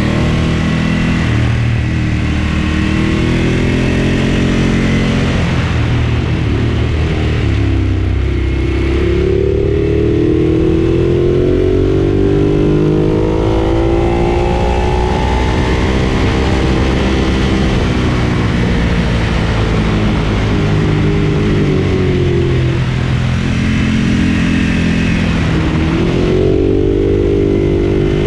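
Ducati Monster 1200 S's 1198 cc L-twin engine under way, climbing in pitch as it accelerates and dropping back as it eases off, several times over, with a long pull about ten seconds in.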